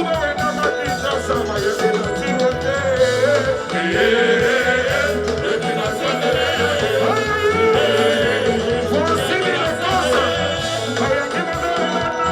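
Live band playing Congolese rumba music with singing: a continuous groove of bass and drums under wavering melodic lines.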